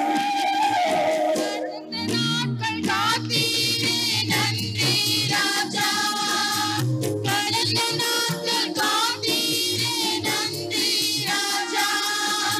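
A group of women singing a Christian devotional song together, accompanied by tabla and electronic keyboard. The opening moments are instrumental; the voices come in about two seconds in, over steady tabla strokes.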